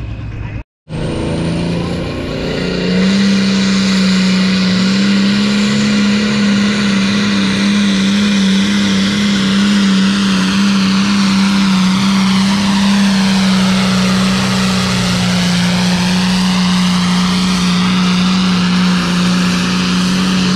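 Modified John Deere diesel pulling tractor at full throttle, hauling the pulling sled down the track. The engine comes up about two seconds in, then holds one loud, steady note for the rest of the pull.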